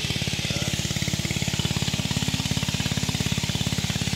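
Engine of a pond-dewatering water pump running steadily, an even rapid thumping of about a dozen beats a second.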